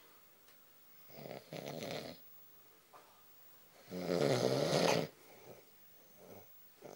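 A person snoring: two snores about three seconds apart, the second one louder.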